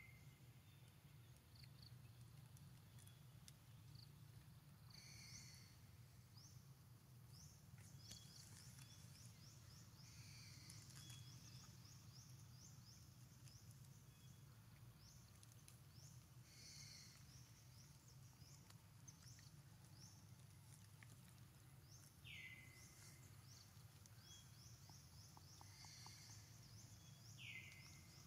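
Faint outdoor ambience: birds calling in the distance, with a few short falling whistled notes and runs of high rapid chirping over a low steady hum.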